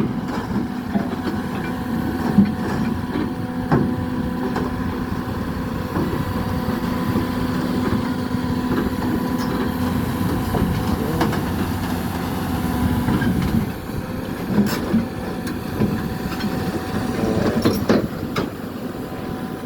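Hyundai crawler excavator's diesel engine running steadily, with scattered knocks and clanks. The steady hum changes a little over two-thirds of the way through.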